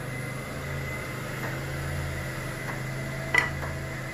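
Wood lathe running steadily with a bowl spinning on it, no cut being made, a steady low hum with a thin high whine. A single sharp tap about three and a half seconds in.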